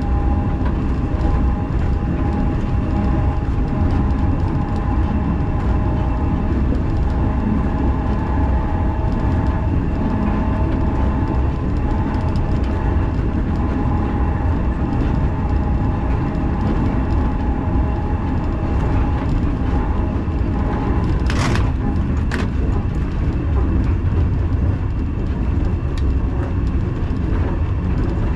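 Two-axle museum tram running along the track, heard from the cab: a steady rumble of wheels on rails with a faint whine over it, and two short sharp sounds about three-quarters of the way through.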